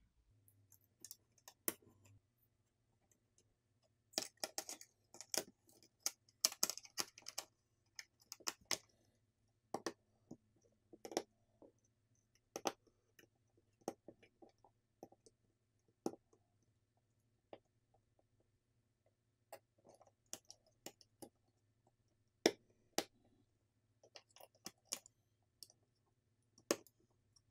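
Scattered small clicks and taps of tools and parts on an iPhone 16 Plus being put back together, with a busier run of quick clicks from about four to eight seconds in, over a faint steady hum.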